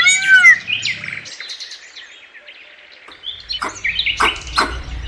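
Bird calls: a quick series of repeated arched calls at the start, then scattered high chirps, with several sharp taps over a low rumble in the second half.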